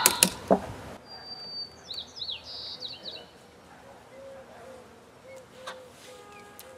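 A few sharp clicks of a ratchet strap being tightened around a beehive in the first half second, then birds chirping, with a run of short repeated calls in the second half.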